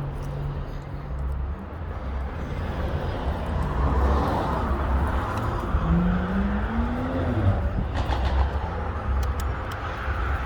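Steady low rumble of outdoor background noise, with a short rising tone just past the middle and a few light clicks near the end.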